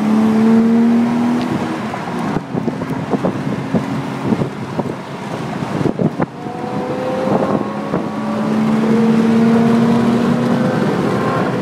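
Mercedes C36 AMG's straight-six engine with a K&N carbon cold-air intake, heard from inside the cabin pulling under acceleration at highway speed. Its pitch climbs slowly, drops at a gear change about two seconds in, then climbs again in the second half. Sharp knocks and rattles come through in the middle.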